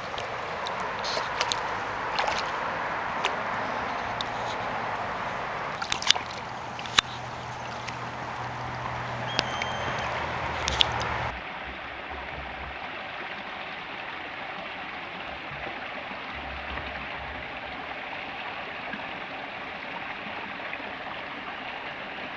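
Stream water running over rocks, a steady rush, with a few sharp clicks in the first half. About halfway the sound changes abruptly to the steady rush of a small cascade in a rocky brook.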